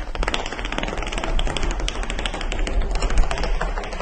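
Chocolate pieces set up as a domino run toppling one after another: a fast, continuous chain of small clicks and taps.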